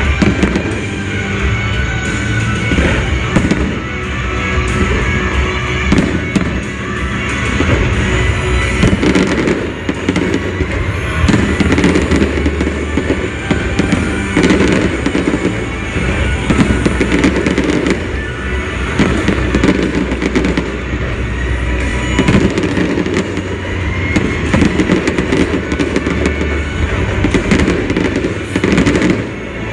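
Fireworks bursting in rapid, continuous succession throughout, with music playing underneath.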